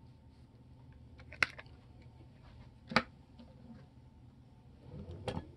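Two sharp clicks, then a brief rustle and knock near the end, as small plastic and diecast model trucks are handled and set down by hand, over faint room hum.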